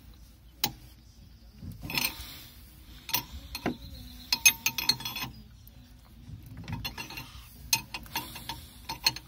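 Steel combination wrench clicking and clinking against a brass pipe fitting on a Velvet Drive marine transmission as the fitting is tightened: scattered sharp metallic clicks and clanks, a few ringing briefly, the loudest about halfway through.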